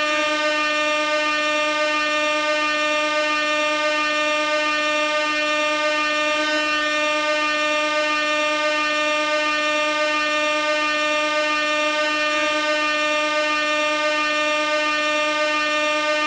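Compressed-gas air horn sounding one continuous blast on a single steady pitch, with a slight blip about every six seconds.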